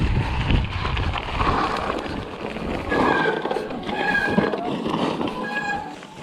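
Mountain bike rattling and rumbling down a rough snowy forest trail, with wind buffeting the handlebar-mounted microphone. In the second half a few short high-pitched squeals cut through, and the low rumble eases.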